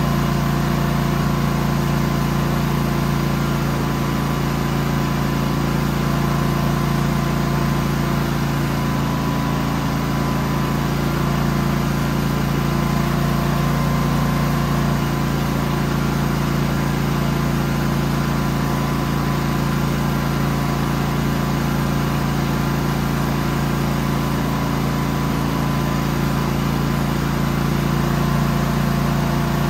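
Genmax GM9000iED inverter generator running at a steady speed, an even engine hum with a constant tone over it.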